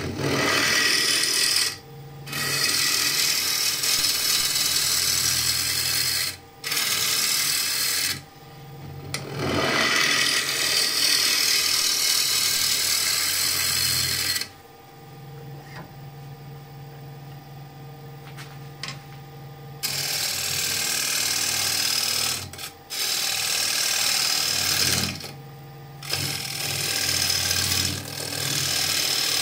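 Bowl gouge cutting across the face of a large wooden disc spinning on a wood lathe, in long passes broken by short pauses. In the pauses the lathe motor's steady hum is left, with the longest break about halfway through.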